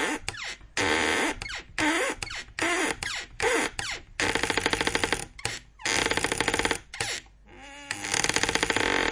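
Squeaky door hinges creaking in a quick run of short, separate creaks. Some glide in pitch; others are a fast, even chatter of tightly spaced clicks.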